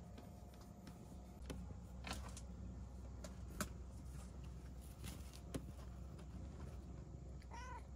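A steady low hum with several light clicks and knocks scattered through it, and a brief high-pitched vocal sound near the end.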